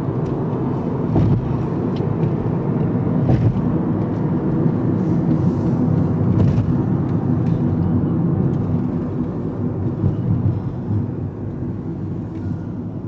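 Steady road and engine noise of a moving car, heard from inside the cabin, with a few faint ticks. It eases off a little near the end.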